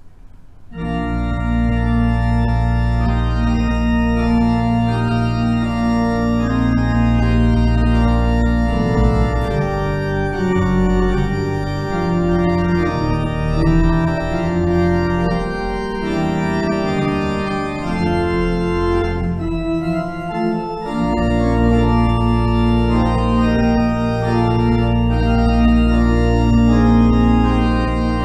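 Church organ playing held chords with a deep pedal bass, starting about a second in; the bass drops away for several seconds in the middle and then returns.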